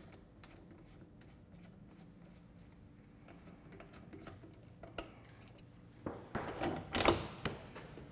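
Metal parts of a lens projector's bayonet mount being handled: a faint click about five seconds in, then a cluster of sharp clicks and knocks near the end as the reticle holder is unlocked and drawn out of the mount.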